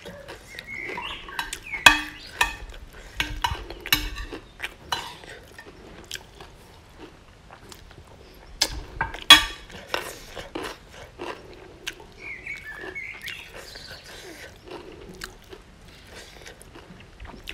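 Close-up eating sounds: chewing, lip smacking and sucking, with a metal spoon clinking and scraping on a ceramic plate. The sharpest clicks come about 2 s and 9 s in.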